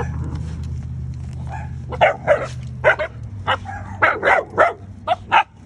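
Belgian Malinois dogs barking in play, about a dozen short sharp barks and yips in quick succession starting about a second and a half in.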